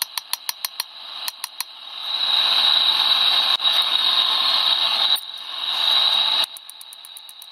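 A quick run of light hammer blows on hot spring steel over the anvil, several strikes a second, shaping a forged spoon's bowl. Then comes the steady hiss of the gas forge burner while the spoon is reheated. Near the end there is another fast run of hammer blows.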